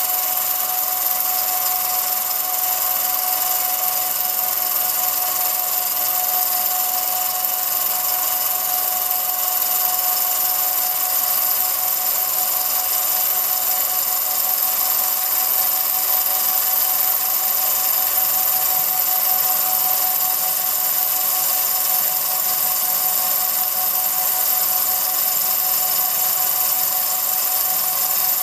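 Film projector running: a steady motor whine made of several fixed tones over an even hiss.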